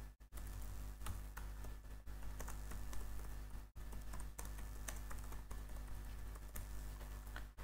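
Typing on a computer keyboard: a run of irregular key clicks over a faint steady low hum.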